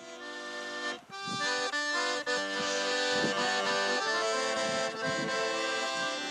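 Piano accordion playing a tune: a held chord opens it, and about a second in the melody starts over fuller chords.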